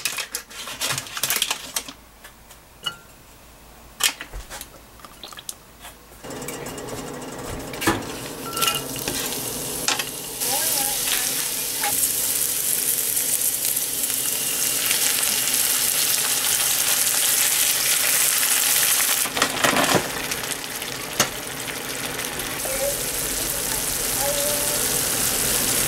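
Onion and garlic frying in a non-stick pan on a gas burner. A few knocks as the food goes in, then from about six seconds in a steady sizzle that grows louder. A brief cluster of knocks comes about two-thirds of the way through.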